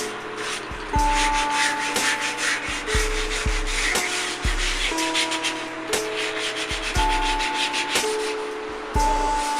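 Quick back-and-forth sanding or rubbing strokes on wood, over slow plucked lyre notes that start about once a second.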